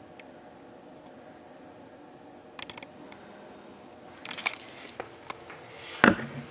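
Quiet room tone with scattered light clicks and handling noises, and a louder knock or rustle near the end.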